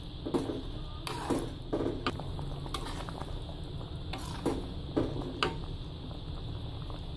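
Metal spatula stirring boiled beef through a thick simmering soy gravy in a wok, scraping and clinking against the pan about ten times at uneven intervals, over the low steady bubbling of the sauce.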